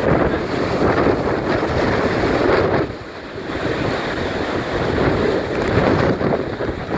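Typhoon-force wind in the inner core of a Category-3 typhoon, gusting hard and buffeting the microphone. It eases briefly about three seconds in, then builds again.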